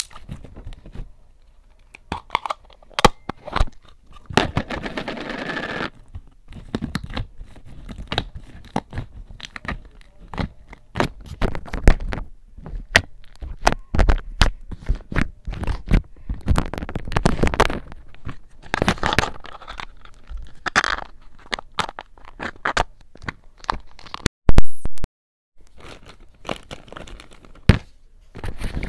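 Hands squishing and poking a soft homemade butter slime, giving many short sticky clicks and pops with some longer squelches. There is one loud knock a little before the end.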